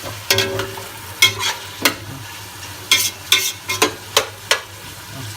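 Onions frying in hot oil, sizzling steadily, while a utensil stirs them and scrapes and knocks against the pan, with sharp clicks coming irregularly several times a second.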